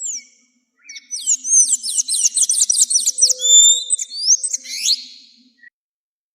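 Azulejo songbird singing: a short high note, then a fast warbling phrase of about four seconds built from rapid, repeated downward-sweeping whistled notes.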